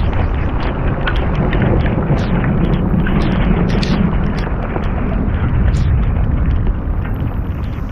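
Strong storm wind buffeting the microphone in a dense, steady low rumble, with rain and frequent sharp ticks over it.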